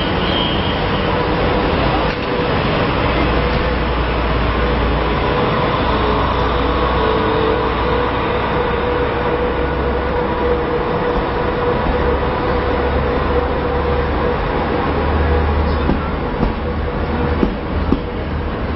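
A train running at a station platform: a steady, loud rumble with a held tone over it.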